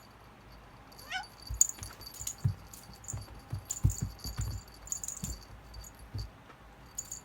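A cat playing with a cat-teaser toy: a scatter of rattling, jingling clicks over dull thumps on the floor, with a short rising squeak about a second in.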